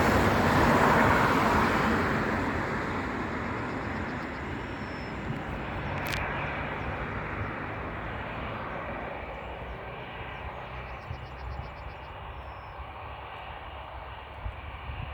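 Jet airliner engines: a loud rushing roar that fades steadily as the aircraft draws away. A short sharp click about six seconds in.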